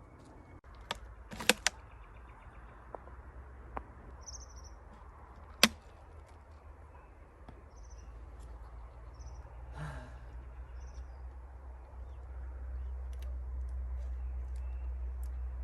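A few sharp clicks and knocks, the loudest two near the start and one about six seconds in, with faint short high chirps between them. Under it all runs a low rumble that grows louder about twelve seconds in.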